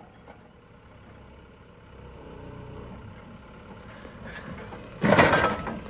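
Excavator engine running steadily with its hydraulics working and a slight rise under load. About five seconds in comes a sudden loud crash lasting just under a second, the bucket striking a lawn mower.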